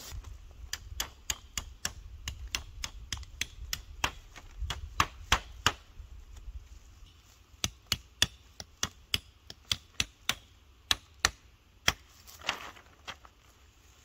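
Tarp stakes being driven into the ground with the back of a hatchet: a quick series of sharp knocks, about three or four a second, in two runs with a short pause between.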